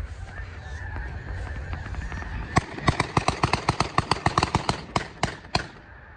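Shotguns from several hunters fire a rapid volley of roughly twenty shots in about three seconds, starting about two and a half seconds in, into a rising flock of snow geese. The massed honking of the flock goes on underneath.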